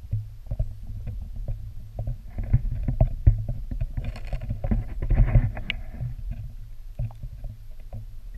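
Water sounds picked up by a submerged camera: a steady low rumble with many small clicks and knocks, and a louder splashing hiss from about four to six seconds in, close to the water's surface.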